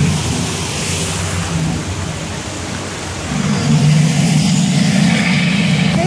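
Steady rushing and splashing of a small artificial waterfall pouring into a pool, with a low hum under it that fades about a second in and returns a little past three seconds.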